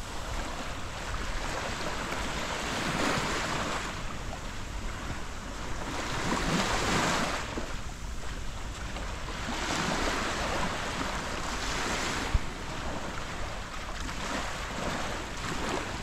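Sea waves breaking and washing up the beach, swelling every three or four seconds, with wind buffeting the microphone. A single brief knock about twelve seconds in.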